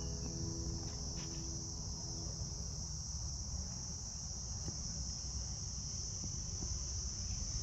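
Steady high-pitched chorus of crickets, with a low rumble underneath. Faint guitar music fades out in the first couple of seconds.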